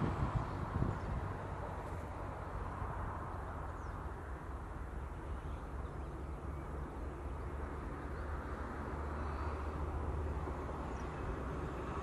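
Steady low outdoor rumble, with a few faint high chirps now and then and no clear pigeon cooing.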